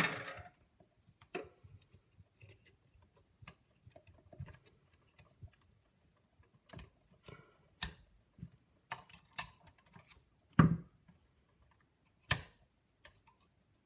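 Small metal clicks and taps of a lever lock's parts being handled as a lever is worked out of the lock case, with a louder knock about ten seconds in and a sharp metallic clink that rings briefly near the end.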